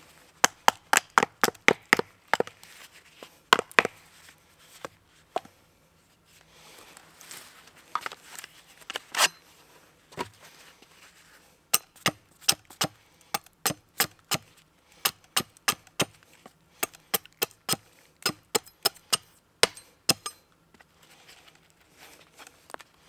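Cold Steel Viking battle axe, held short near the head, making quick light chops into wood: runs of sharp wooden knocks, about four or five a second, broken by short pauses.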